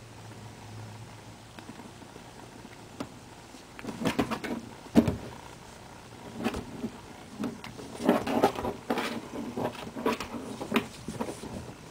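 Domestic cat chirping and chattering in several short bursts of quick stuttering calls, the excited sound a cat makes at prey it is watching outside the window. A sharp knock about five seconds in.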